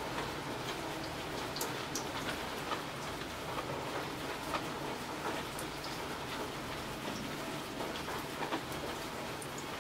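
Steady rain falling, with scattered sharp, close drops ticking here and there over the even hiss.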